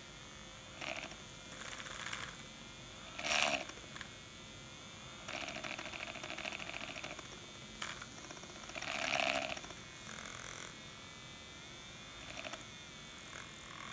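Rechargeable handheld milk frother whirring steadily as its wire whisk spins in a small glass, whipping dalgona coffee (instant coffee, sugar and water) toward a creamy foam. Louder swishes and rattles against the glass come and go several times.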